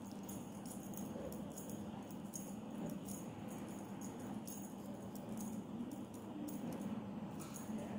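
Irregular light ticks and rustles from a kitten playing with a feather wand toy on a tile floor, over a steady low hum.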